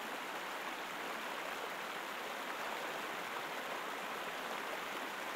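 Steady rush of a fast, shallow river running over rocks.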